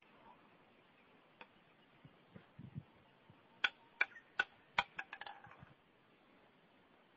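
A quick run of sharp clicks and light clinks from a homemade rubber-band slingshot gun being handled before a shot.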